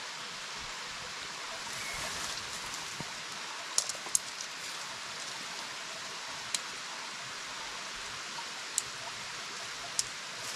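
Steady rushing of a shallow stream. A few sharp clicks and taps, from a tent pole being threaded through the tent's sleeve, come about four seconds in and again near six and a half, nine and ten seconds.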